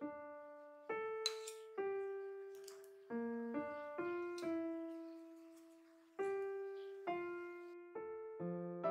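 Background music: a slow, gentle piano melody of single notes, each struck and left to ring and fade, about one a second, with one note held longer in the middle.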